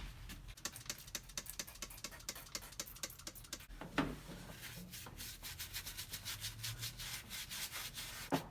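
A brush scrubbing rust dissolver gel onto a car's rusty metal floor pan in quick short strokes, with one knock about four seconds in.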